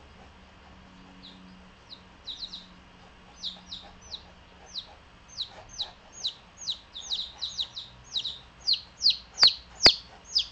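Baby chicks peeping: repeated high, downward-sliding peeps, sparse at first and coming faster and louder toward the end. Two sharp clicks sound about a second before the end.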